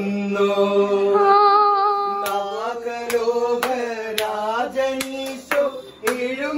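Voices singing a slow, chant-like song in long, wavering held notes. From about two seconds in, hand claps keep time, a little under two a second.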